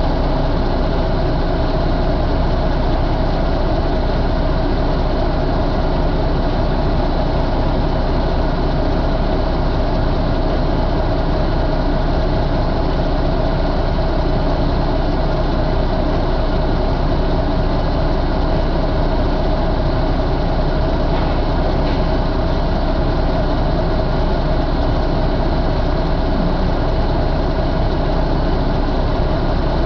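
2017 International N13 inline-six diesel engine idling steadily, heard close up in its open engine bay.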